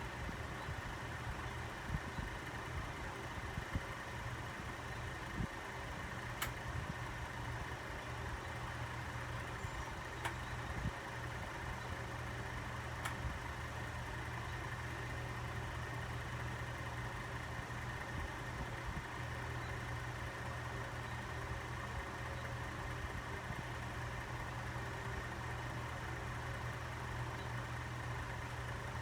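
Vintage NuTone Hacienda 36-inch paddle ceiling fan running: a steady low motor hum with air noise, broken by a few faint clicks.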